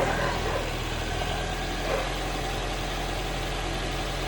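Honda CR-V engine idling steadily, warm after a long drive. The owner hears a rattle from it that he puts down to the gearbox.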